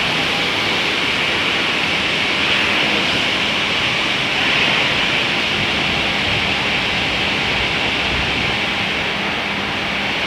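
Capstan winch machine running steadily: a constant mechanical din with a strong hiss and a low hum.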